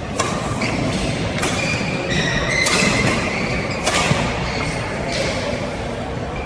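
Badminton doubles rally: four sharp racket strikes on the shuttlecock about every second and a quarter, with sneakers squeaking briefly on the court floor between them.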